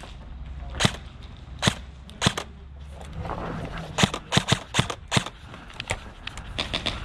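Airsoft guns firing: a few spaced single shots, a quick cluster of about five shots midway, then a rapid string of shots at about seven a second near the end.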